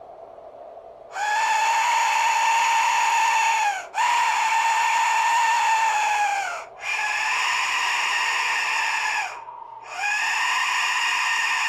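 A 3D-printed, skull-shaped Aztec death whistle is blown in four long blasts, starting about a second in. Each blast is a harsh, noisy, screeching whistle whose pitch sags as it ends.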